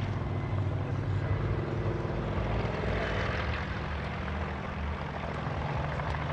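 Kamov Ka-26 coaxial-rotor helicopter running low over the airfield, its two radial piston engines and rotors making a steady drone.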